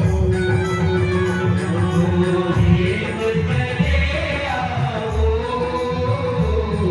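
Music with a singing voice holding long, gliding notes over a steady beat.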